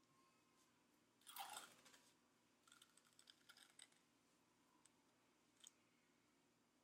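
Faint handling of white athletic tape: a short rasping peel as tape is pulled off the roll about a second in, then a run of soft crackling clicks and one more click near the end.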